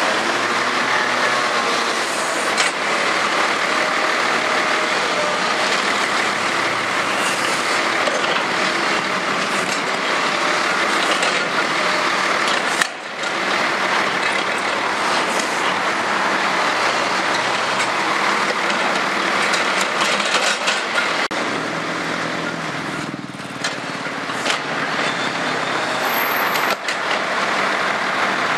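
Diesel engine of a long-reach excavator running under work with a clamshell grab, mixed with street traffic, a steady mechanical noise that dips briefly twice.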